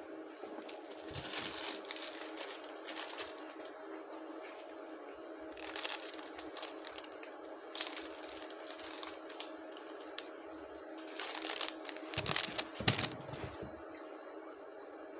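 Plastic packaging crinkling and rustling in short bursts as a package is opened and handled, over a steady hum.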